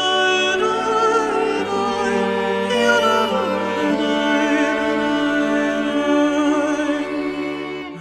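Background music: a singing voice with vibrato over held low notes that change every second or two.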